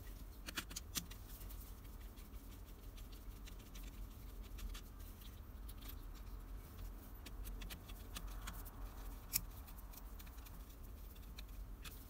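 Small clicks and rustles of gloved hands handling wires at the terminals of a plastic switch-socket plate, with a few sharp clicks just after the start and one louder click about nine seconds in.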